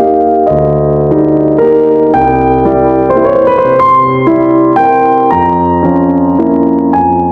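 Background music: piano or electric keyboard playing sustained chords and a slow melody.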